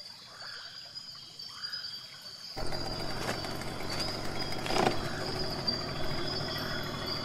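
Outdoor riverside ambience: a steady high-pitched insect drone with a few faint short calls. About two and a half seconds in, a louder, even rushing noise joins, with a couple of brief knocks.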